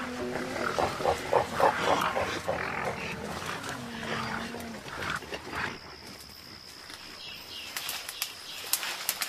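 Gorillas calling: a fast run of rough calls in the first two seconds, then quieter, with scattered clicks and rustles near the end.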